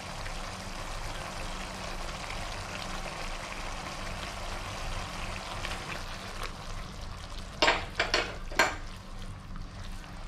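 Chili sauce sizzling and simmering in a wok as it is stirred with a silicone spatula: a steady frying hiss. About three-quarters of the way through come three loud, sharp knocks close together.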